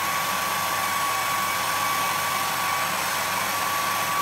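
Hair dryer running at full power: a steady rush of air with a thin, steady high whine from its motor, drawing about 11 amps.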